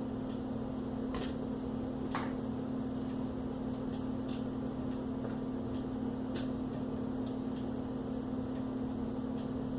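A steady hum with a few short, light clicks over it from screwdriver work on the small screws that hold a laptop screen in place.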